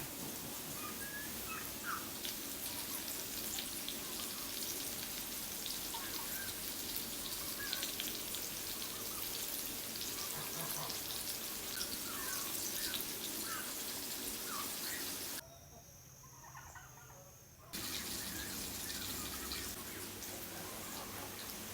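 Birds chirping in short, scattered calls over a steady hiss. The sound drops away for about two seconds about three-quarters of the way through, then returns.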